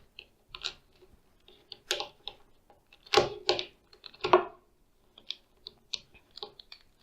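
Irregular plastic clicks and clacks as the layers of a 3x3 cube are pushed round with a pointer stick. A few louder knocks come in the middle.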